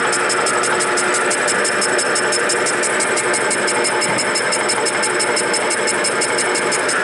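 Milling machine taking a cut in metal with an indexable-insert milling cutter: a steady machining noise with a rapid, regular ticking on top, about six or seven strokes a second.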